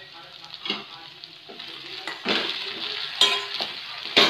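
Wooden spatula stirring sauce-coated cauliflower pieces in a hot nonstick kadai, with a sizzle and several scrapes and knocks of the spatula against the pan. The stirring grows louder about two seconds in, and the sharpest knock comes near the end.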